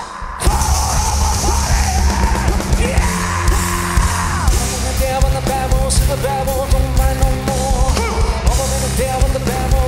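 Live rock band playing loud, with pounding drums and a dense wall of guitar and synth, and the singer yelling into the microphone over it. The band crashes back in about half a second in after a brief drop.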